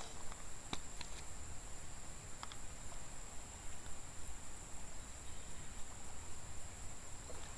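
Quiet outdoor ambience: a low steady rumble under a steady high thin hum, with a few faint clicks in the first few seconds.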